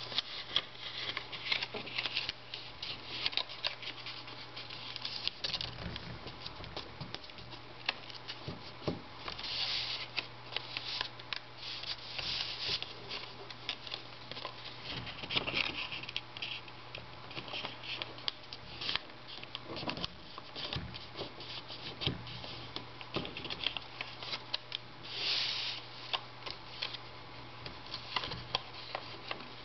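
A sheet of thin origami paper being folded and creased by hand: irregular crinkling rustles and small sharp snaps of paper as fingers press and run along the folds, over a faint steady low hum.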